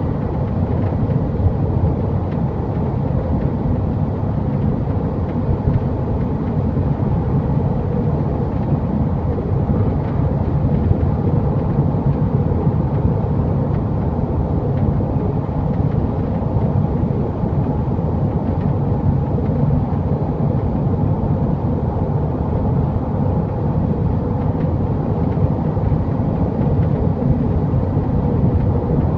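Toyota GT86's 2.0-litre flat-four and road noise at speed: a steady, even drone, the driving sound in which the car's rattle above 100 km/h (65 mph) occurs.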